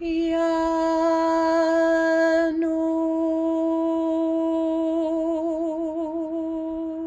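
A single voice chanting the Sufi divine name "Ya Nur" on one long held note, the tone wavering slightly in pitch in its second half.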